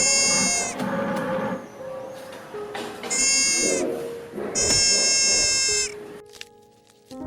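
Three high-pitched animal calls, the last one longest, over soft background music.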